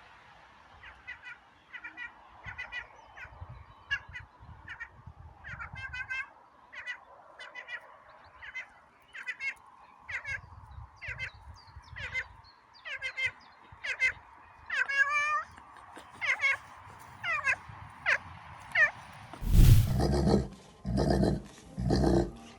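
An animal giving a long series of short, high, pitched calls, about one or two a second, growing louder through the series. Near the end a much louder, lower sound starts suddenly.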